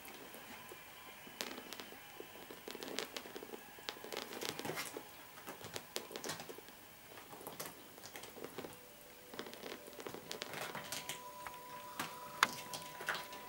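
Kittens scrabbling and climbing on a hanging fabric backpack: irregular rustling of the fabric and scattered claw clicks.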